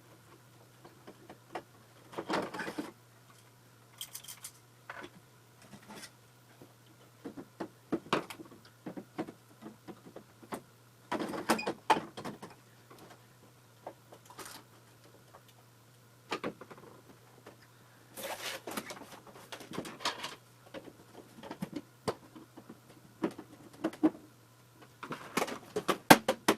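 Scattered clicks, knocks and scraping of plastic parts being handled, as the replacement lamp is fitted into a Panasonic DLP rear-projection TV and the set is closed up, over a steady low hum.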